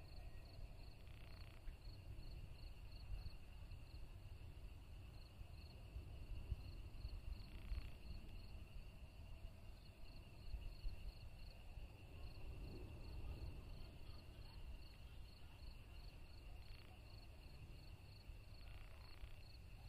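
Crickets chirping faintly in an even rhythm, about three chirps a second, with a steady high insect trill beneath and a low continuous rumble.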